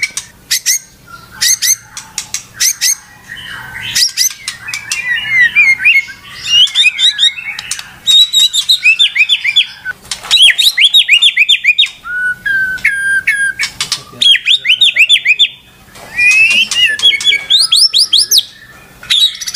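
White-rumped shama (murai batu) singing without let-up. Its song is rapid runs of quickly repeated sweeping notes, whistles and sharp clicks, in bursts separated by brief pauses.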